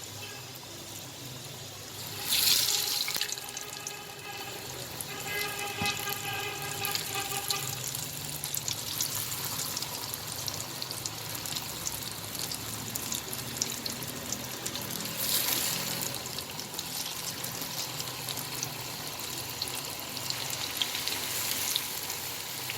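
Flour- and starch-coated cauliflower florets deep-frying in plenty of hot oil: a steady crackling sizzle, with louder surges twice.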